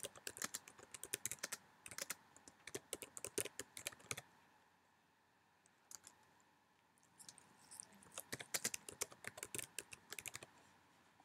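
Typing on a computer keyboard: quick runs of key clicks, stopping for about three seconds in the middle before a second run.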